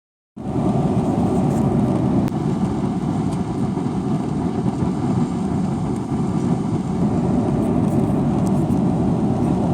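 Steady low rumble of cabin noise inside a Boeing 777-300ER airliner. It starts about half a second in and holds at an even level.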